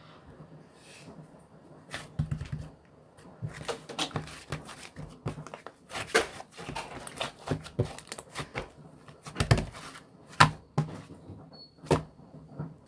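Irregular clicks, taps and knocks from objects being handled, a few of them sharper and louder, over quiet room tone.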